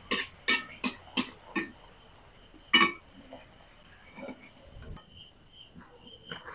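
Kitchenware clinking and knocking: five sharp knocks in quick succession over about a second and a half, then one more nearly three seconds in. Later a faint, high, pulsing chirp like a cricket's starts up.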